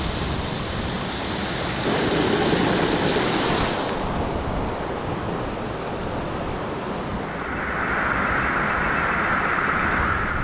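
Steady rush of water: a forest waterfall falling into its pool and a mountain stream tumbling over boulders. The rush shifts in tone a couple of times and turns brighter and hissier about three-quarters of the way through.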